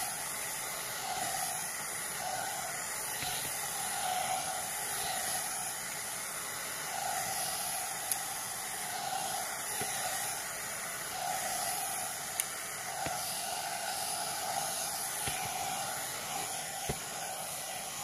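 Hot-air brush (a 3-in-1 hair dryer brush) blowing a steady rushing hiss of air as it is drawn through thick hair. The sound swells and fades slightly about once a second.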